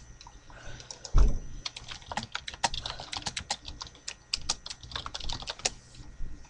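Typing on a laptop keyboard close to the microphone: a quick run of key clicks lasting about four seconds, after a single loud thump about a second in.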